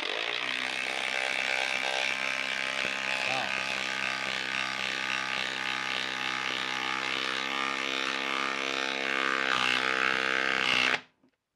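Makita 18V cordless impact driver running under load, its hammer impacting steadily as it drives a 4-inch lag screw into a stump with no pilot hole. It gets slightly louder toward the end and stops suddenly about eleven seconds in, as the lag seats.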